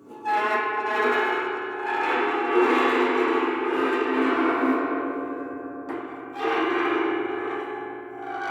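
Superball mallet rubbed across a metal percussion instrument, drawing out a sustained, wavering ring of many overtones. It fades and is set going again about six and a half seconds in.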